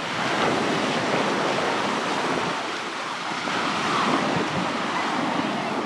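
Sea surf washing onto the beach: a steady rush of breaking waves that swells slightly about half a second in and again around four seconds.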